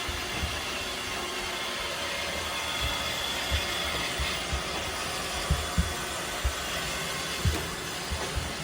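Roomba robot vacuum running steadily as it cleans up confetti, with a few soft low knocks scattered through.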